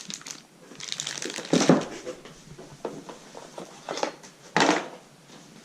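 Parcel packaging being handled and opened: irregular crinkling and rustling with scattered clicks, and louder rustles about one and a half seconds in and near the end.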